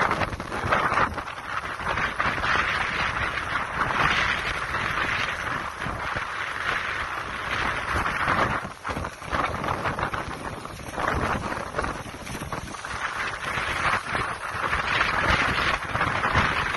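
Strong wind gusting and buffeting the microphone: a loud rushing noise that swells and falls every few seconds, with a low rumble underneath.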